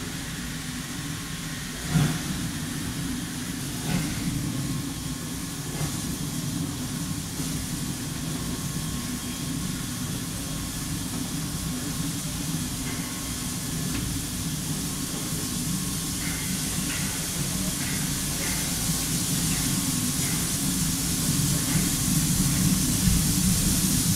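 Steam locomotive working as it approaches, with a steady low rumble and exhaust beats a couple of seconds apart at first, coming quicker later on. The sound grows steadily louder as it nears.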